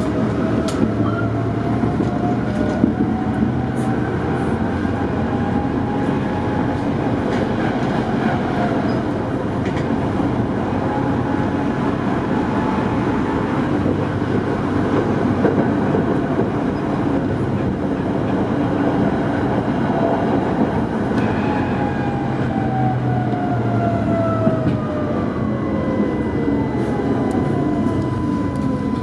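Tatra T5C5 tram heard from inside while running: a steady rumble of wheels on rail, with the traction motors' whine rising slowly as the tram gathers speed, then falling steadily over the last several seconds as it brakes into a stop.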